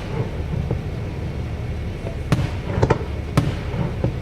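Fireworks going off: a series of sharp bangs and crackles over a steady low rumble, with a cluster of bangs a little past the middle.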